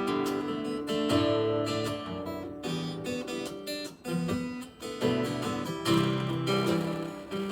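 Solo acoustic guitar playing chords and a melody.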